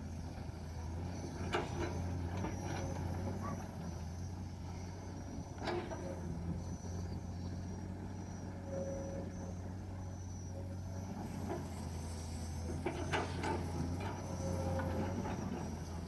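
Heavy diesel machinery running steadily at a low drone, with a few sharp knocks scattered through, as an excavator loads soil into a dump truck.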